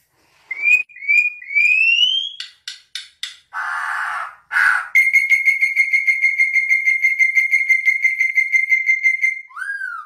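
Black-and-yellow oriole-type songbird singing: a few rising whistled slurs, a harsh buzzy note, then one long, rapidly pulsing whistle held on one pitch for about four seconds, ending with a short slurred note.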